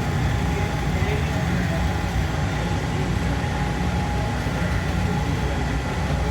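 Steady running rumble of an airport people-mover train car, heard from inside the car as it travels along its guideway, with a few faint steady whining tones above the low noise.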